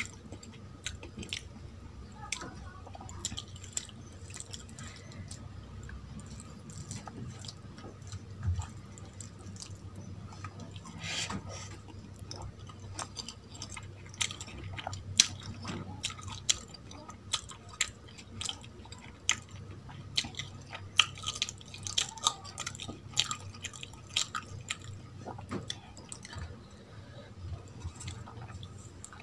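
Close-miked eating sounds: wet chewing of mouthfuls of basmati rice with chicken liver curry, with fingers squishing and mixing rice and curry on a steel plate, and many small, sharp clicking sounds.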